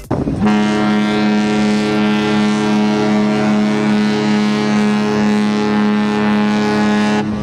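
Cruise ship horn sounding one long, steady, deep blast of about seven seconds that cuts off sharply near the end.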